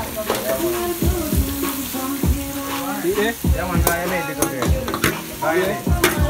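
A metal spoon scraping and clinking against a stainless steel bowl as seasoned raw chicken is turned out into a frying pan, with sizzling and stirring in the pan, and several sharp clinks.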